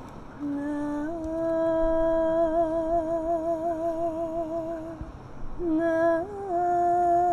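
A woman's voice singing slow, long-held notes with a wavering vibrato. One note is held for about four seconds; after a short break about five seconds in, the voice steps up in pitch and holds another note.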